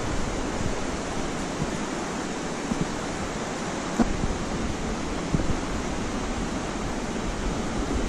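Steady rush of a fast-flowing river with rapids and small waterfalls, with a couple of faint knocks.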